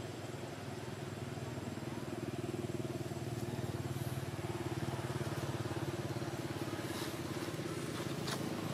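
A motor engine running steadily off-screen, a low hum that grows a little louder about two seconds in, with a couple of short clicks near the end.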